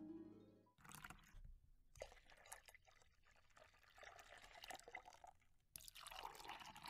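Milk pouring from a carton into a glass, a faint, uneven splashing stream.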